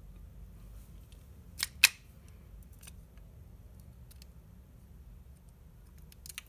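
Handling noises of a plastic hair-clipper housing and small hand tools: two sharp clicks close together about a second and a half in, then a few faint ticks.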